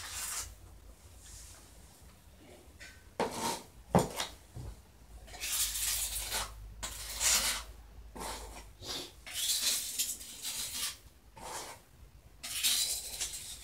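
Irregular scraping and rubbing strokes with light clinks, and a sharp knock about four seconds in.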